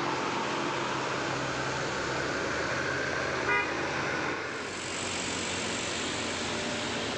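Bus engine running with steady road noise, and one short horn toot about three and a half seconds in.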